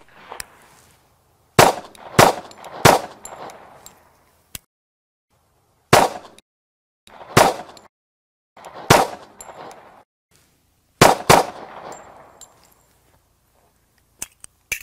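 Nighthawk Custom Bull Commander, a 1911 pistol in .45 ACP, fired eight times, each shot with a short echo. Three shots come about half a second apart, then three slower single shots, then a quick pair.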